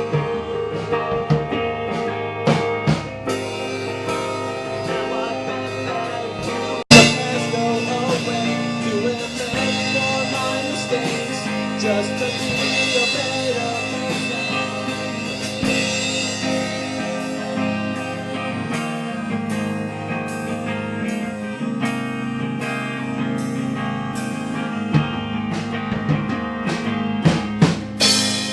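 Live rock band playing with drum kit and guitar. About seven seconds in, the recording breaks off with a sharp click and jumps to a different passage of music.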